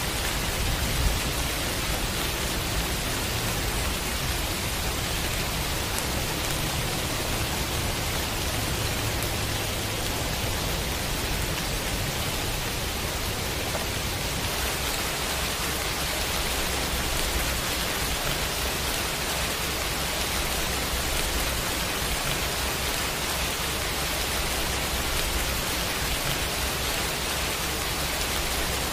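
Steady heavy rain: a continuous dense hiss with a low rumble beneath it, and one brief louder knock about a second in.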